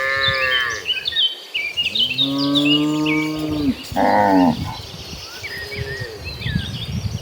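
Cattle mooing, three calls with a long low moo in the middle, and small birds chirping in the background.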